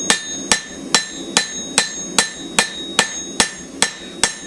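Blacksmith's hand hammer striking a hot steel knife blade on an anvil in a steady rhythm of about two and a half blows a second, each with a short metallic ring. He is hammering along the edge to counter a curve in the spine by drawing the metal up.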